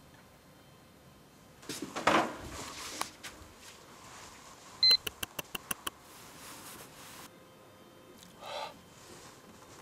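A rustle about two seconds in, then a short high beep followed by a quick run of about seven clicks, roughly six a second, and a brief scuff near the end.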